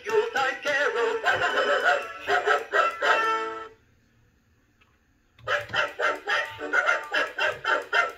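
Gemmy Singing Christmas Dog Trio animated toy playing an electronic Christmas song through its speaker; the tune stops about three and a half seconds in, and after a pause of under two seconds the toy starts its next song with short, evenly spaced notes.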